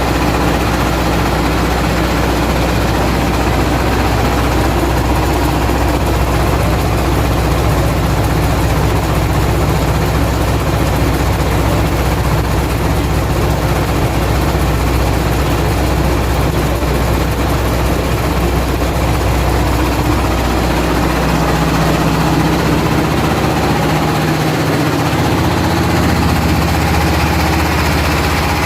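Floating fish-feed pellet extruder machine running: a loud, steady mechanical drone with a low hum, its lowest tones shifting slightly near the end.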